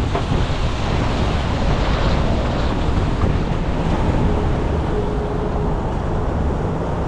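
Storm-force wind blowing over the microphone and waves rushing past a sailing yacht, a steady unbroken noise, with a faint thin whistle for a second or so a little past the middle.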